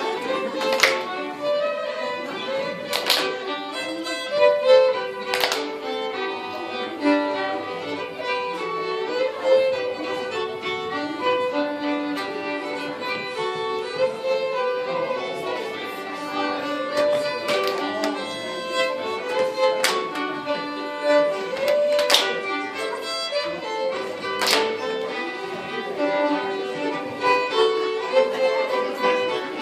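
Swedish folk dance music led by fiddle, a lively bowed melody, with sharp clicks about every two and a half seconds near the start and again in the second half.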